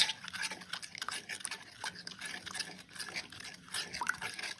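A metal spoon stirring thin, wet batter in a bowl, with repeated squelching and scraping strokes against the bowl as the batter is worked smooth of lumps.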